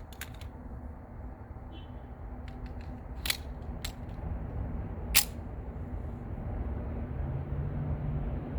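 A few sharp metallic clicks and clacks of a 1911 pistol being readied to fire: a magazine going in and the slide being worked. The loudest clack comes about five seconds in, over a steady low background rumble.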